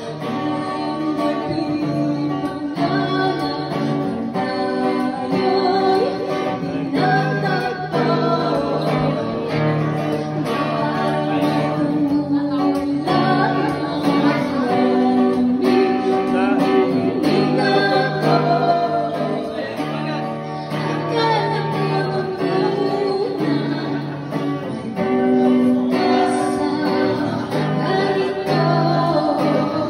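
A woman singing a song through a handheld microphone, accompanied by a strummed acoustic guitar.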